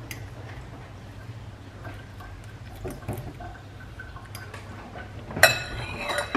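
Fork tapping and scraping in a ceramic bowl as a ripe banana is mashed, with a few faint taps and one sharp, ringing clink about five and a half seconds in.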